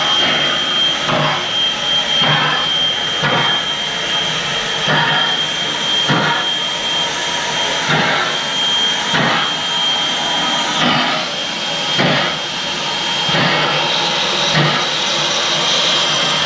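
Steam locomotive chuffing slowly, its exhaust beating about once every second and a bit, over a steady high-pitched hiss of steam.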